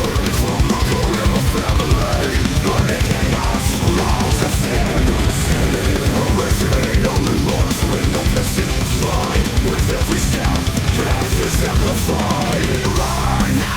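Background music: a heavy, aggressive metal track with pounding drums and guitar, with no vocals.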